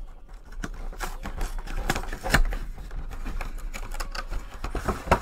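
Cardboard collection box being opened and its clear plastic blister tray slid out: irregular crackling and clicking of plastic and cardboard packaging, with a sharper click about two and a half seconds in and another near the end.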